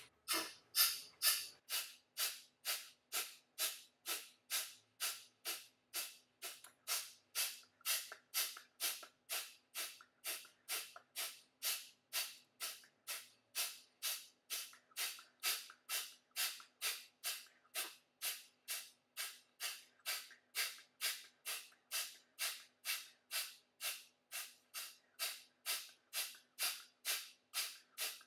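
Kapalbhati breathing: short, forceful exhalations through the nose in a steady rhythm of about two a second. A faint steady hum lies underneath.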